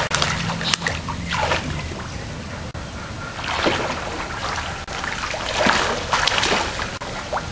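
Swimming pool water splashing and sloshing in several uneven bursts as people move through it.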